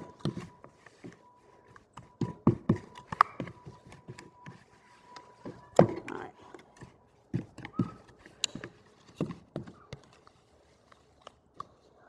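A spoon stirring and working a stiff, lumpy salt dough of flour, salt and water in a bowl, giving irregular knocks and scrapes against the bowl.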